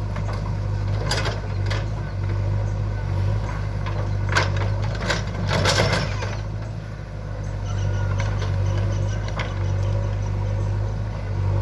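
JCB 3DX backhoe loader's diesel engine running steadily under work, with a few sharp knocks and a spell of clattering around the middle as the machine loads the tipper lorry.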